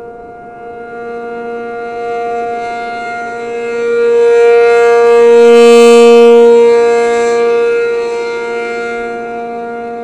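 ACA P-50 rotating outdoor warning siren sounding its steady two-tone alert chord, about 470 and 705 Hz. The pitch holds steady while the loudness swells to a peak a little past the middle and falls away again as the slowly rotating horn sweeps past.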